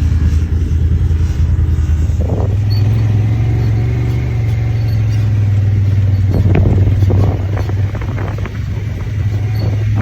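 Honda Talon side-by-side's engine running steadily while driving, a loud low drone that steps up slightly in pitch about two seconds in.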